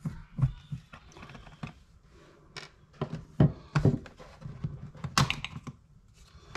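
Handling noises at a wall light switch box: irregular small clicks, taps and knocks, with a few sharper knocks in the middle.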